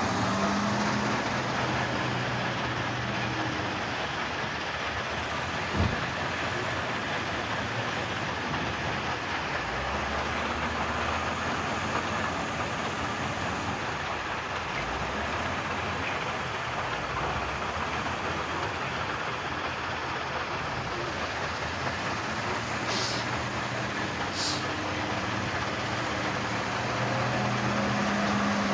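Heavy diesel machinery running steadily, its engine hum rising near the start and end, with a sharp knock about six seconds in and two short air hisses near the end.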